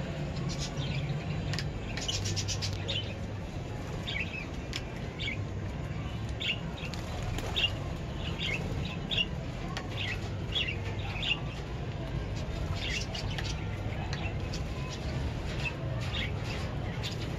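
A flock of lovebirds chirping, short high chirps coming every second or so, over a steady low hum.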